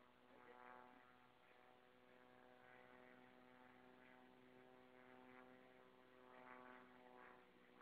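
Faint, steady drone of a crop-spraying plane's propeller engine passing at a distance, swelling slightly about a second in and again near the end.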